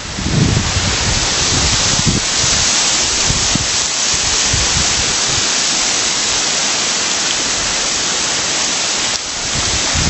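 Steady rush of a small waterfall spilling down a rock face, with wind buffeting the microphone in the first second. The rush drops off about nine seconds in.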